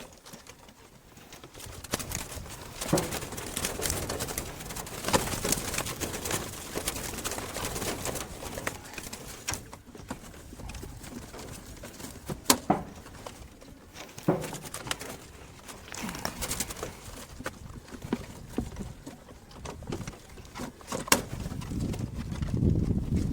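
Doves around a bird trap, with low cooing near the end and scattered sharp knocks and rustling throughout.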